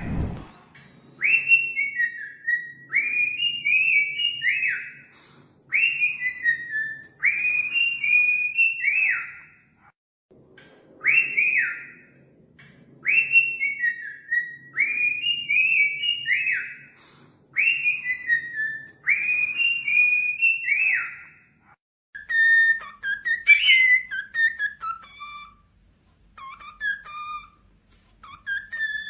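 Cockatiel song: short phrases of clear whistled notes that rise and then fall, repeated about every one and a half seconds, with a pause about ten seconds in. Around twenty-two seconds in the song changes to choppier, lower notes. It is a whistled song meant to set other cockatiels singing.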